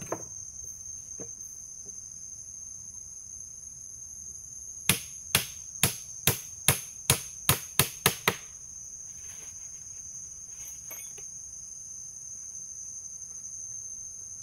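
A run of about nine sharp hammer strikes, two to three a second, about five seconds in: a nail being hammered into wood. Under it, a steady high-pitched drone of forest insects.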